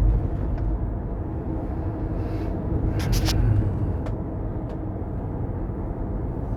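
GMC Denali truck driving at road speed: a steady low drone with a hum running under the road noise. This humming persisted after the differential was replaced, and the owner suspects the front end, either the transmission or the transfer case. A few brief clicks come about three seconds in.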